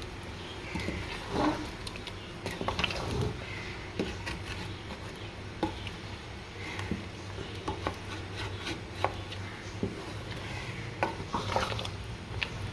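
A spoon stirring a thick korma in a cooking pot, scraping and knocking against the pot at irregular moments, over a steady low hum.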